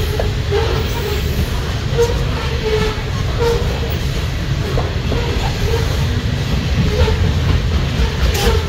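Freight train of open-top coal hopper cars rolling past: a steady low rumble of steel wheels on rail, with occasional clicks and clacks and short, faint squeals.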